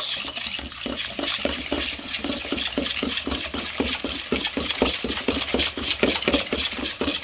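Wire balloon whisk beating egg yolks into melted butter and sugar in a stainless steel mixing bowl, the wires scraping and tapping the metal. Fast, even strokes, about four or five a second.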